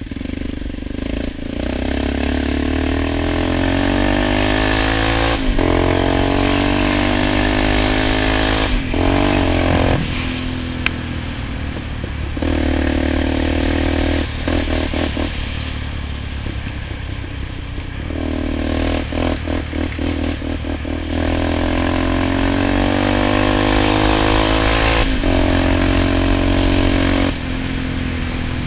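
Single-cylinder four-stroke ATV engine heard from the rider's seat, pulling under load: its pitch climbs as it accelerates and drops back at each shift or throttle lift, several times over, with choppy on-off throttle around the middle.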